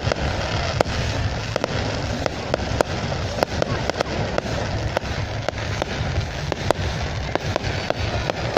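Fireworks going off at a display: a continuous run of sharp bangs and cracks at irregular intervals, several a second, over a constant rumbling wash of noise.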